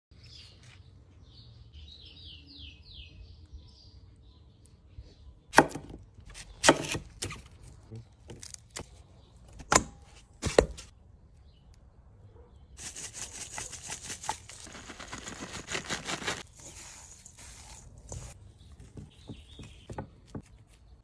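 Food-prep handling sounds with birds chirping in the background. There are a few quick chirps in the first seconds, then four sharp knocks between about five and eleven seconds in, then a few seconds of dense crackling, crunching noise.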